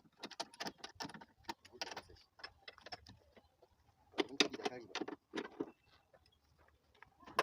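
Irregular metallic clicks and clinks of hand tools and bolts on steel while hinge brackets are being tightened onto a car door, with a louder, busier run of clattering about four seconds in.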